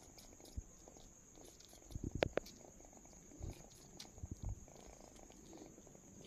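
A young tabby kitten purring close to the microphone, with a few soft bumps and rustles about two seconds in and again past four seconds.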